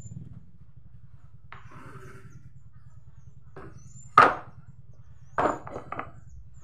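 Heavy timber window-frame pieces knocking together as they are lifted and set down: one loud wooden clunk about four seconds in, then a quick cluster of smaller knocks. A faint scrape comes earlier, and a low steady hum runs underneath.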